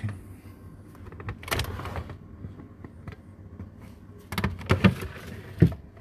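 Freezer drawers of a Hotpoint XEX95T fridge freezer being slid and handled, with frozen packs in plastic bags rustling and knocking. There is a burst about a second and a half in, then a run of clatters and knocks in the second half.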